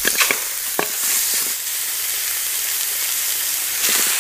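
Raw beef pieces being dropped and pressed into an aluminium pot by hand: a few short wet knocks, a cluster at the start, another about a second in and one more near the end, over a steady hiss.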